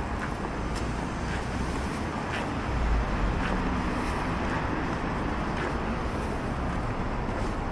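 Steady city-street traffic noise heard while walking, with faint footsteps about once a second. A low rumble swells briefly about three seconds in.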